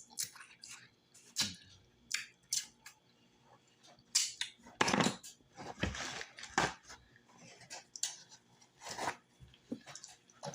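Close-miked chewing of stewed cow foot: irregular wet smacks and clicks of the mouth, with louder bursts about four to five seconds in and again around six to seven seconds.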